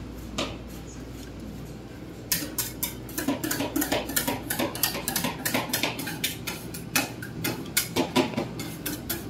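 Metal spatulas chopping and scraping ice-cream mix on the frozen steel plate of a rolled-ice-cream cold pan: one tap about half a second in, then from about two seconds in a fast run of sharp metallic clicks and scrapes, several a second.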